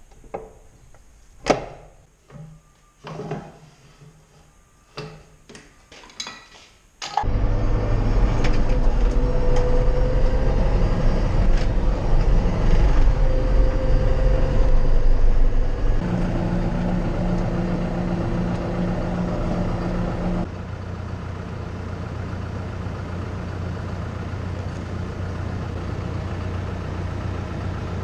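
Sparse plucked notes and clicks for the first seven seconds. Then a John Deere 5085M tractor's diesel engine cuts in loudly and runs steadily, heard from inside the cab. Its level steps down twice in the second half.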